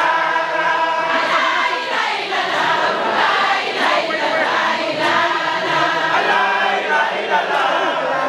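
Many voices chanting a devotional song together in unison, steady and continuous.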